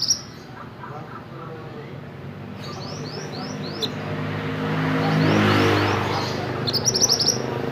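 A mantenan bird calling in quick series of short, high, sweeping notes: one burst about three seconds in and a louder one near the end. A motor vehicle passes meanwhile, its engine swelling to loudest about five and a half seconds in.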